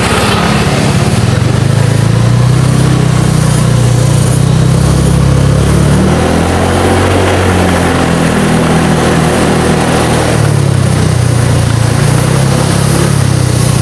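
Honda automatic scooter's single-cylinder engine running at low riding speed, its note wandering in pitch around the middle and steadying again near the end, with steady wind and road noise over the microphone.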